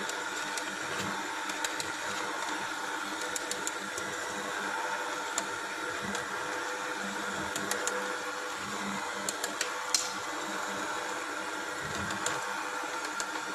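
Electric hand mixer with dough hooks running steadily as it kneads flour and a little water into dough in a stainless-steel bowl: a constant motor hum with occasional light clicks.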